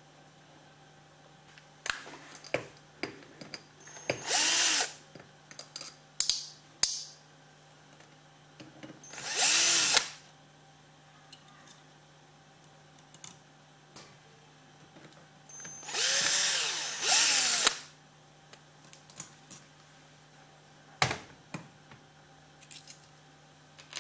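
Cordless drill-driver backing out the small cap screws of an aluminium magnetic table's housing in four short whirring bursts, each rising and falling in pitch, the last two back to back. Metallic clicks and knocks of the screws and tool come in between.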